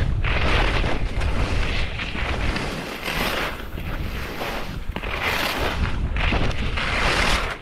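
Wind noise on the microphone of a skier moving fast, with the skis scraping and hissing over thin snow in surges that rise and fade about once a second as he turns.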